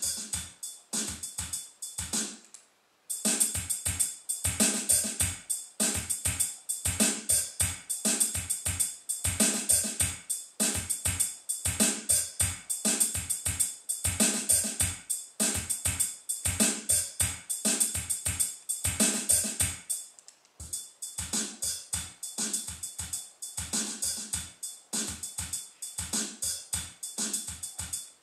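Drum-led instrumental music played back through Magnat Monitor Supreme loudspeakers: a fast, steady kick-and-hi-hat beat that breaks off briefly near three seconds in and again about twenty seconds in.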